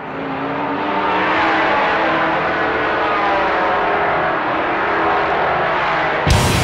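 Steady race-car engine noise that swells over the first second. Near the end, heavy rock music with electric guitar cuts in abruptly.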